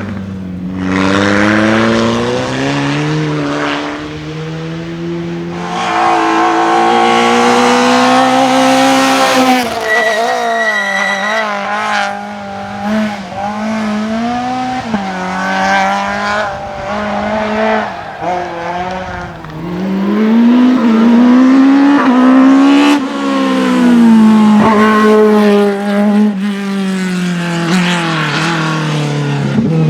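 Competition cars running a hillclimb slalom at full throttle, the engine note climbing and dropping repeatedly through gear changes and braking between the gates. There is a brief tyre squeal around the middle.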